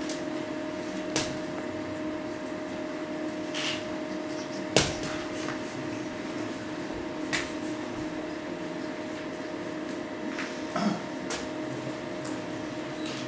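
A steady electrical hum with a few scattered knocks and clicks from someone moving on a hard floor, the loudest knock about five seconds in.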